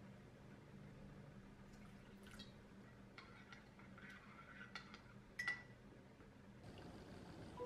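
Metal spoon stirring a sauce in a small ceramic bowl: faint liquid sloshing with light clinks of the spoon against the bowl, the sharpest about five and a half seconds in.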